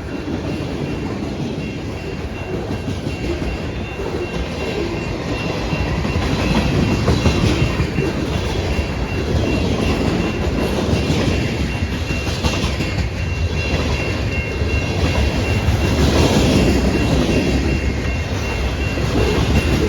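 Train cars rolling past with a rhythmic clickety-clack of wheels over the rail joints, growing louder.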